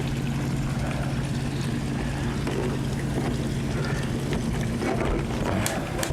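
A steady low mechanical hum, with a light rush of wind on the microphone and a couple of short knocks near the end.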